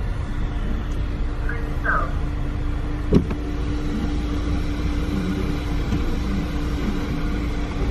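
Car running, heard from inside the cabin: a steady low rumble with a steady hum, and one sharp knock about three seconds in.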